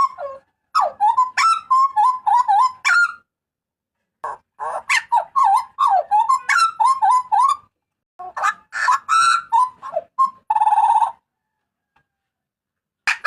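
Hooded butcherbird (jagal papua) calling loudly. Three runs of rapid, fluttering whistled notes with sharp upward flicks come in quick succession, each a few seconds long with short pauses between, and a harsh buzzy note follows about ten seconds in.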